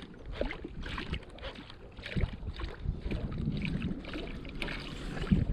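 Water lapping and splashing against the side of a fishing boat, with irregular small splashes as a musky lure is drawn through the surface alongside the hull.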